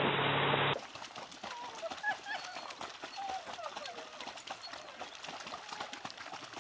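Steady rush of a boat's wake with the boat's engine humming, cut off under a second in. Then quieter splashing of small dogs paddling in a pool, with faint, high, wavering calls.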